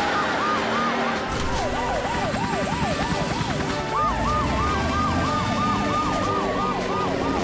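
Cartoon rescue vehicles' sirens wailing in fast rising-and-falling sweeps, about three a second. A second siren joins about four seconds in and overlaps the first.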